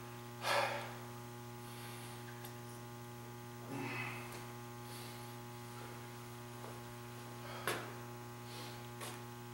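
Steady electrical mains hum, with a few brief soft noises about half a second in and again around four seconds, and a short sharp click near the end.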